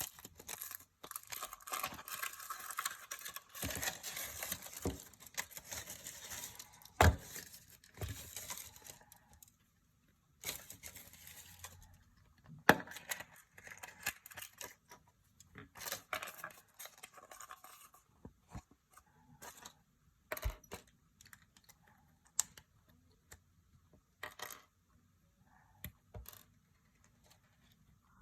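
Foil wrapper of a chocolate surprise egg being torn and crinkled by hand, in stretches of rustling with sharp clicks and taps, two of them loud, at about 7 and 13 seconds in. In the last ten seconds it thins out to scattered small clicks.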